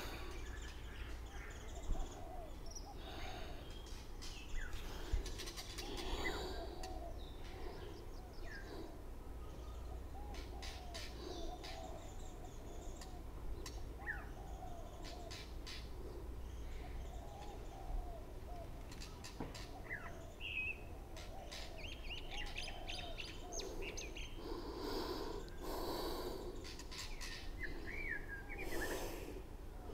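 Birds chirping and calling: many short rising-and-falling notes throughout, with higher, quicker chirps in the second half, over a low steady rumble.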